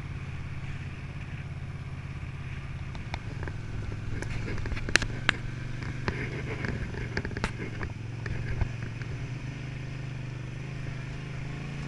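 1982 Honda CX500's water-cooled V-twin running steadily under way, with a scatter of sharp knocks and clicks from about three to nine seconds in as the bike rides over a rough dirt track.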